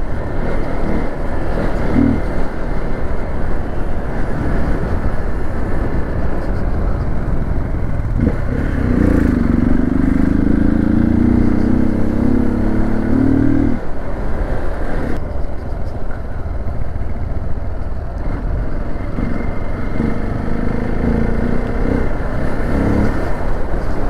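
Hero XPulse 200's single-cylinder engine running as the bike is ridden along the road. From about nine seconds in, the engine note climbs steadily for roughly five seconds as it pulls harder, then drops away.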